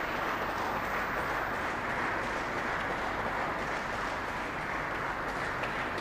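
Audience of many people applauding steadily.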